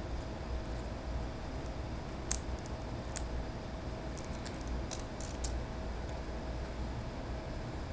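Scattered light clicks and crackles from hands handling a tablet's glass digitizer and plastic bezel while peeling off adhesive, over a steady low hum. The clicks bunch together about halfway through.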